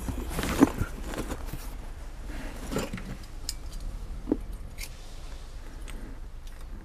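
Cardboard box rustling as it is moved in the first second or so, then a few scattered light clinks as wire tongs touch and shift burning Tosa binchotan white charcoal in a clay shichirin grill.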